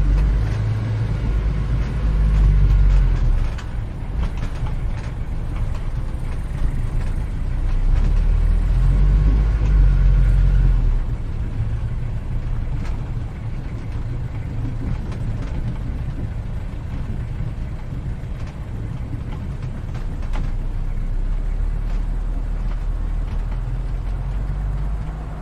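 Low, rumbling noise of passing street traffic. It swells louder twice in the first ten seconds, then runs steadier and a little quieter.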